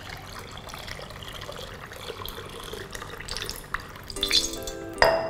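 Thin tamarind chutney pouring in a steady stream from a glass bowl into a pot. Near the end come a few brief louder clinks and short ringing tones.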